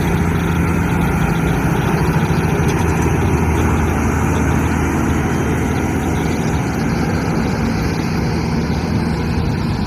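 Diesel engine of a heavy tanker road-train truck running as it drives past, a steady low engine drone.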